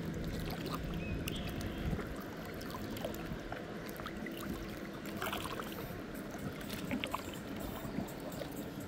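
Shallow lake water sloshing and lapping with small splashes and drips. A steady low hum is under it for the first two seconds, then fades.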